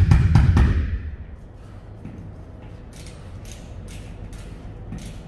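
Rapid knocking for about the first second, then faint scattered clicks and taps as a hand tool works a pin into a reefer trailer's fabric air chute overhead.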